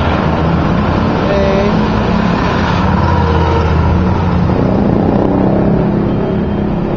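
Street traffic: motor vehicles running along the road close by, a steady mix of engine rumble and road noise that swells as vehicles pass.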